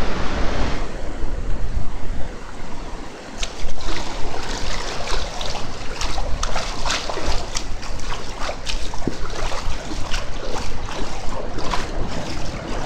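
Sea surf breaking and washing over a flat sandy beach, a steady rushing wash with fizzing crackles, and wind rumbling on the phone's microphone.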